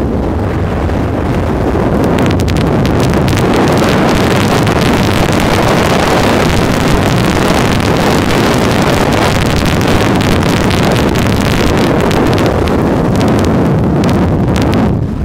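Heavy wind buffeting on the microphone of a camera carried down a fast downhill run on snow, mixed with the continuous hiss and scrape of sliding over the snow. It grows fuller and brighter about two seconds in.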